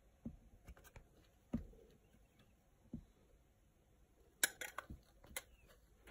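Handling noises from a small clear plastic vial: a few soft knocks, then a quick run of sharp clicks a little past the middle as long metal tweezers go in against the plastic walls and the tissue packing.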